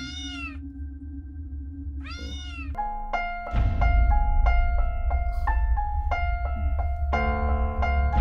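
A cat meows twice, each call rising and then falling. Then horror film music begins: repeated high, tinkling keyboard notes over a deep rumble, which swells louder about three and a half seconds in.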